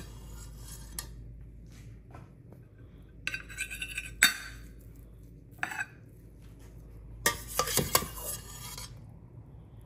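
Metal serving spoon scraping and clinking against a cooking pot and a plate in three short bursts of clatter as rice and dal are dished out, the sharpest clinks about four and eight seconds in.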